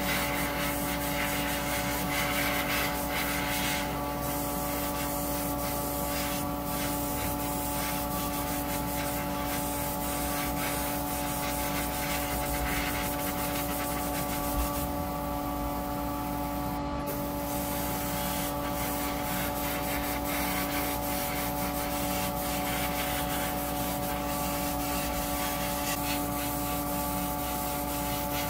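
Sanding: quick, irregular rubbing strokes over a steady motor hum.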